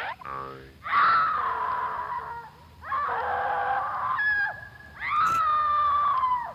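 Three long, high-pitched screaming cries, each holding nearly one pitch and sliding slightly down, with short chirps in between.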